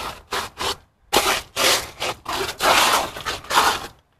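Ice being scraped and crunched in a quick run of uneven scraping strokes, some short and some about half a second long.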